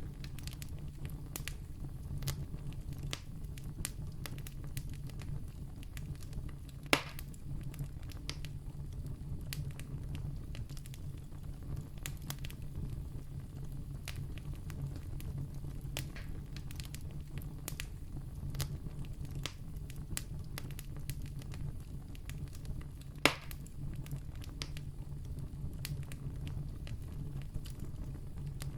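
Wood campfire burning: a steady low rush with frequent small crackles, and two louder sharp pops, one about seven seconds in and another about two-thirds of the way through.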